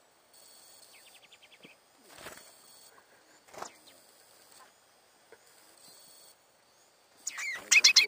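Small finches calling close by. About a second in there is a quick, even trill. Near the end come loud, sharp chirps.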